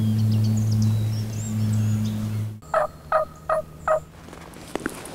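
A steady low hum with songbirds chirping faintly, then, after a cut about two and a half seconds in, four short turkey yelps in quick, evenly spaced succession, each dropping in pitch.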